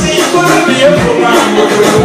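Loud dance music with a steady beat and a singing voice, played for dancing.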